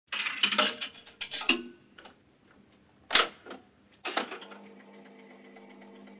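Mechanical clicking and rattling, then a sharp hit about three seconds in and another about a second later that leaves a steady humming tone.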